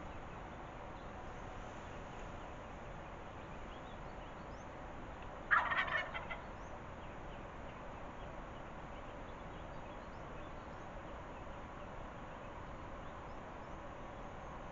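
Wild turkey gobbler gobbling once about five and a half seconds in: one loud call lasting under a second, made of a quick run of broken notes.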